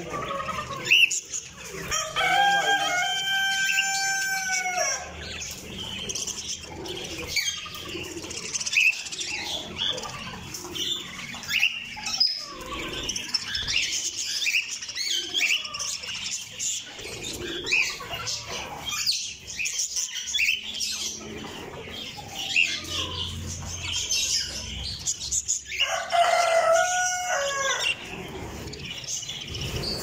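A flock of budgerigars chirping and chattering without a break. Two longer, drawn-out calls stand out, one about two seconds in and another near the end.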